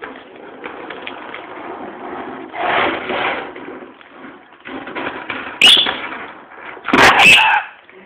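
Pet rainbow lorikeet squawking and scuffling as it attacks a set of keys, with sharp, loud screeching bursts about five and a half seconds in and again near the end.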